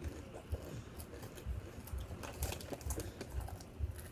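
Crunchy rolled tortilla chips (Doritos Dynamite) being chewed: irregular crisp crackles with soft low thuds about twice a second.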